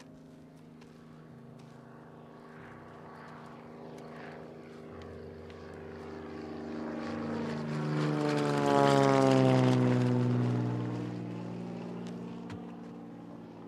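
Propeller airplane flying over: its engine drone grows louder, peaks about two-thirds of the way through, then fades, with the pitch dropping as it passes.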